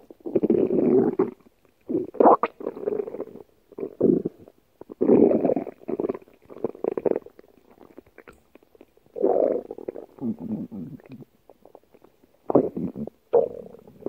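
Stomach growling: a run of gurgling rumbles in repeated bursts of about one to two seconds, with short pauses between.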